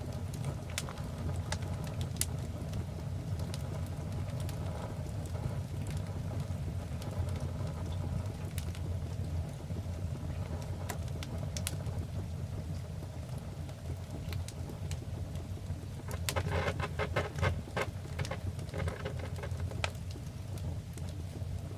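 Fire burning in a fireplace, crackling with scattered sharp pops over a low steady rumble, and a quick run of crackles about sixteen seconds in.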